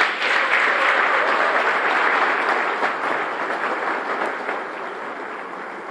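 Theatre audience applauding, the applause fading away over the last couple of seconds.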